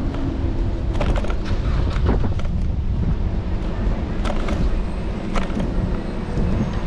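Steady low rumble of wind and road noise picked up by a camera on the handlebars of a moving electric scooter, with a few sharp knocks or rattles, as from bumps in the pavement.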